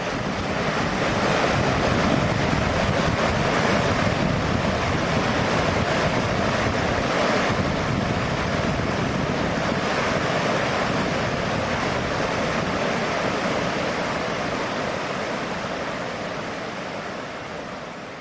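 Water rushing down a small waterfall over rocks on a stream: a steady, loud rushing noise that fades in over the first couple of seconds and dies away near the end.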